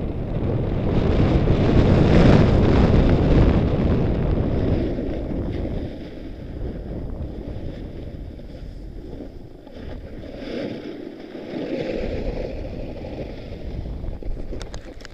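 Wind rushing over the microphone of a camera worn by a skier going downhill at speed, mixed with skis sliding on packed snow. It is loudest in the first few seconds and eases after about six seconds. A few sharp clicks come right at the end.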